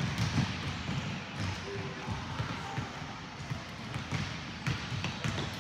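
Basketballs dribbled on a hardwood gym floor: a quick, uneven run of bouncing thumps.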